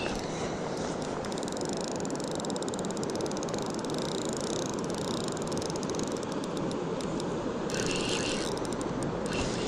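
Spinning reel being cranked with the rod bent under load: a fast, fine clicking from the reel over a steady rushing noise. Two short hissing bursts come near the end.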